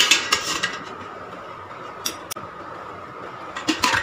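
Stainless-steel tumblers and spoons clinking against each other and the steel bowl as they are stirred and handled in water: a cluster of clinks at the start, two faint ticks around the middle, and more clinks near the end.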